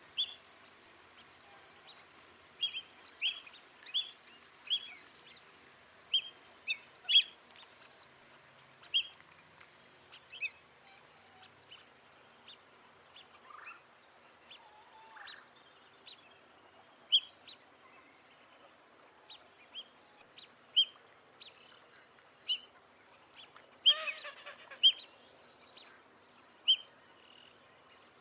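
Black-bellied whistling ducks calling: short, sharp, high squealing whistles repeated at irregular intervals, with a louder, denser flurry of calls near the end. A faint, steady high-pitched whine runs underneath for much of the time.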